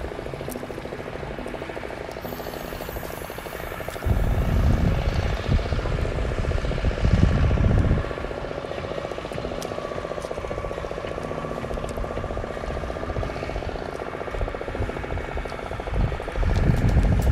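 Wind buffeting the microphone in gusts, loudest from about four seconds in for a few seconds and again near the end, over a steady engine hum.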